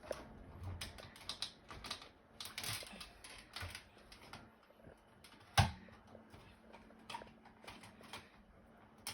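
Irregular plastic clicks and taps of a smoke detector being handled and fitted onto its mounting base, with one louder knock about halfway through.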